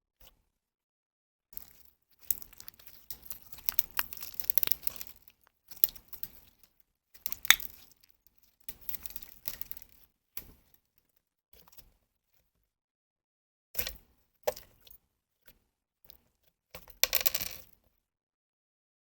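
Slime being squished and kneaded by hand, giving bursts of crackles, clicks and pops with silent gaps between them.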